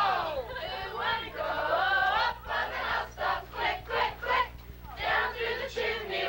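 Group of teenagers singing a Christmas carol together without accompaniment, in a rhythmic, syllable-by-syllable way around the middle.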